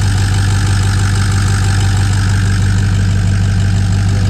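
2005 Ford F-250's 6.0 Powerstroke V8 turbo-diesel idling steadily.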